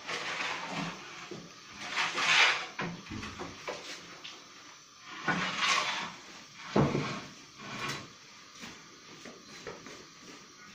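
A long wooden peel scraping and knocking on the stone floor of a wood-fired bread oven as trays of prosphora are slid in. The scrapes come in several irregular swishes, with a few sharp knocks.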